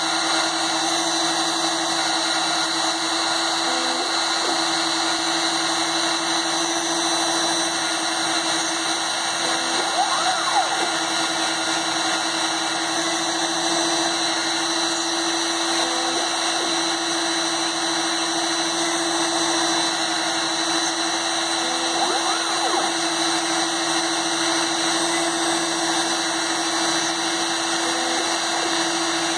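Proxxon rotary tool running steadily as the spindle of a homemade CNC machine, its 1.05 mm PCB drill bit drilling holes in a copper-clad circuit board, with a constant motor whine. A faint brief change recurs about every six seconds.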